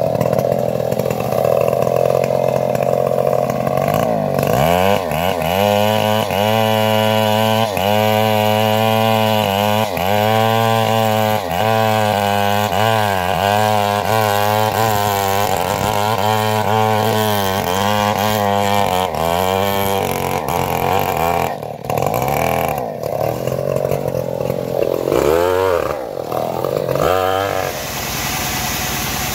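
Stihl two-stroke chainsaw cutting through a teak log at full throttle, then its engine pitch rising and falling about once a second for a long stretch before more cutting. Near the end the sound changes to a steady engine running.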